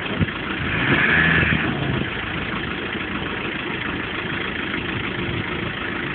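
4x4 engine running at a steady idle, with a louder surge lasting about a second shortly after the start.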